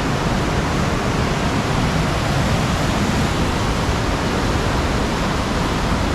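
Rushing of a swollen river in flood, a steady, loud, even roar of fast-flowing water.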